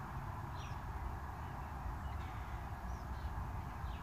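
Several short, high bird chirps, each falling slightly in pitch, scattered over a steady outdoor background of hiss and low rumble.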